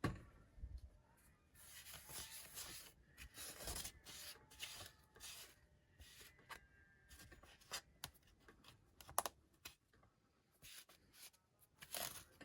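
Irregular scratchy rubbing and scraping with a few sharp clicks: an opened tablet being wiped and handled as its parts are cleaned.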